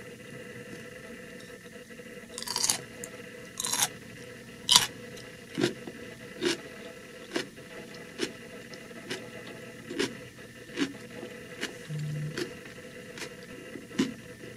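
A crisp pickled cucumber slice being bitten and chewed close to the microphone. Three loud crunches come in the first five seconds, then steady crunchy chewing at about one crunch a second.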